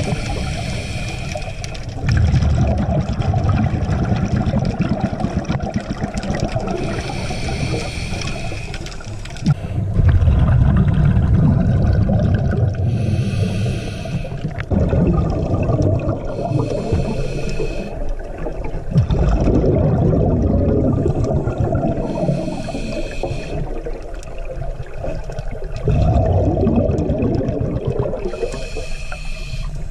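Scuba regulator breathing underwater: a short hiss of inhaling through the regulator, then a longer rumble of exhaled bubbles, repeating about every six to seven seconds.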